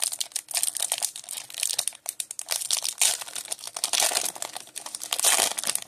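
Foil wrapper of a 1994 Topps Stadium Club baseball card pack crinkling and tearing as it is ripped open and peeled back by hand: a rapid run of crackles.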